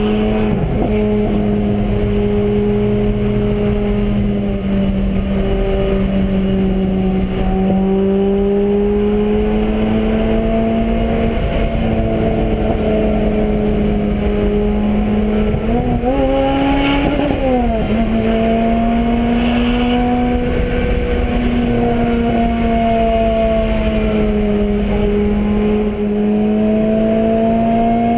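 2010 Lotus Exige Scura's supercharged 1.8-litre four-cylinder engine, heard from inside the cabin while cruising on the highway: a steady engine note that drifts slowly in pitch. Past halfway the pitch climbs briefly, then drops back.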